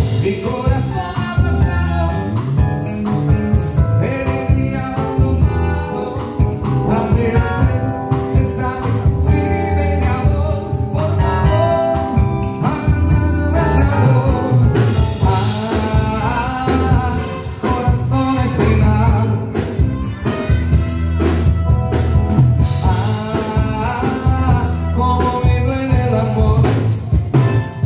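Live band playing a song through PA speakers, with electric guitar, keyboard and drums and a singer's voice over them.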